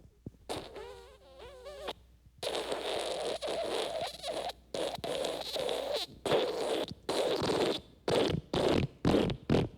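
Human wet fart sound effects: first a squeaky fart with a wavering pitch, then a long wet sputtering fart lasting several seconds, then a string of short blasts near the end.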